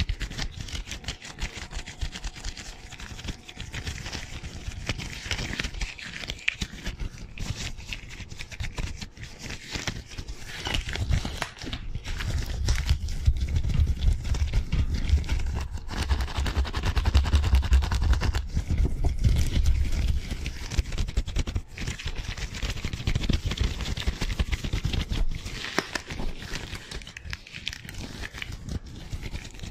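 Thin disposable rubber gloves rubbing, snapping and crinkling in fast, busy hand movements close to a microphone, a dense crackly rustle. From about 12 to 20 seconds in a deep low rumble joins it.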